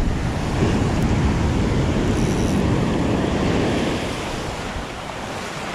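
Ocean surf breaking and whitewater rushing up the beach. The rush swells about half a second in and eases off after about four seconds.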